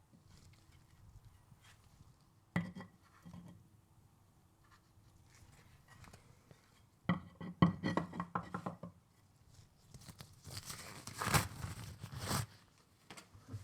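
Hand work on small transmission parts at a bench. There is a sharp click, then a quick run of clicks and knocks about seven seconds in, then a couple of seconds of rustling and rubbing.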